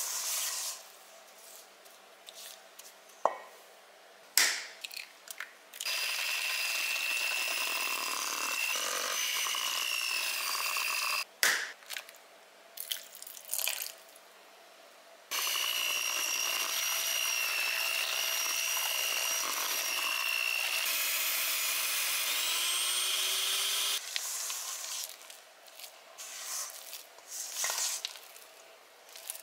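Electric hand mixer running in a stainless steel bowl, beating cookie batter, in two stretches of several seconds each with a steady high motor whine. Between and around the runs, utensils scrape against the bowl, with a few sharp knocks.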